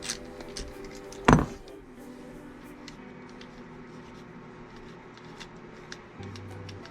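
Background music with scattered small metal clicks and one loud knock about a second in, from parts and tools being handled while an ATV starter motor is taken apart.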